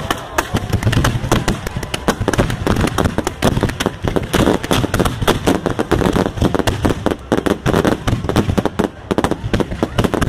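Fireworks and firecrackers going off in rapid, continuous succession: a dense, irregular crackle of sharp bangs, many per second.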